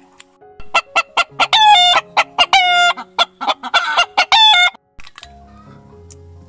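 Rooster clucking loudly in a rapid run of short notes, broken by three longer drawn-out calls, then cutting off suddenly about five seconds in. Soft background music plays underneath.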